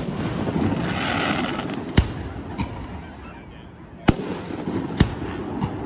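Aerial firework shells bursting: sharp bangs about two seconds in, about four seconds in and again a second later, with smaller pops between. A hiss about a second in and a low rumble run between the bangs.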